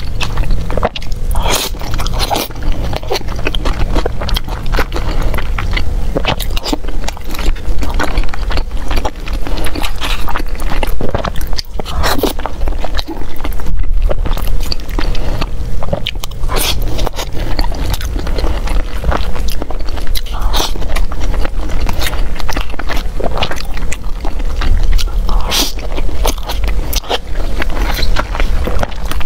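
Close-miked eating: a person chewing and biting mouthfuls of rice and saucy meat, with a spoon scraping and clicking against thin plastic takeout boxes. The sound is a dense, irregular run of small clicks and crackles throughout.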